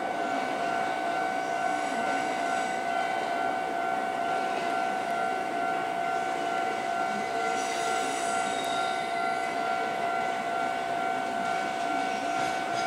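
Kintetsu electric commuter train approaching the station platform, its running rumble under a steady high tone that holds one pitch throughout, with a short rattle of higher noise a little past halfway.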